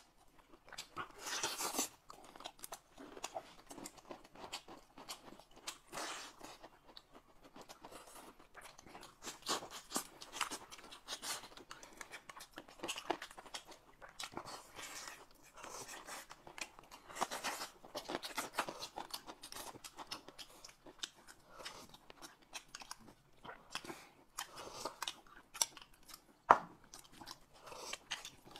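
Close-miked eating sounds: biting into and chewing a chicken leg, with spoonfuls of soup, in irregular bursts. One sharp click near the end.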